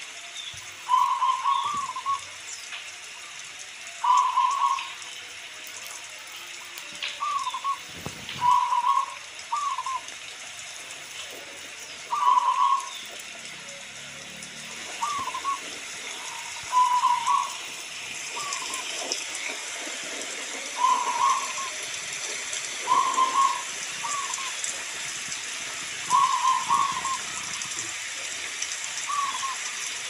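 Zebra dove (perkutut) giving its short, trilling coo phrases again and again, one every couple of seconds, over a steady hiss of rain that grows a little stronger about halfway through.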